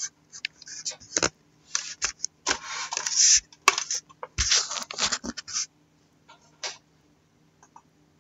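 Handling noise: a run of short scrapes, rustles and sharp clicks that goes quiet after about five and a half seconds, leaving only a few faint ticks.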